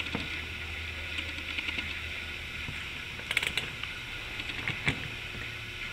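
A quick cluster of light clicks about three seconds in and a single click near five seconds, over a steady low hum: a ratchet loosening the spin nut on the nose-crest emblem's stud a notch so the crooked emblem can be straightened.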